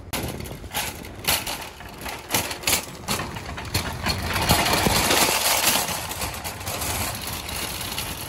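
Wire shopping cart loaded with grocery bags rattling and clattering as it is pushed over asphalt, with irregular clicks that grow louder and denser about halfway through.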